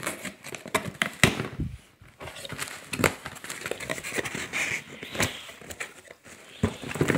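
Cardboard shipping box handled and torn open by hand: irregular rips, scrapes and knocks of cardboard and tape.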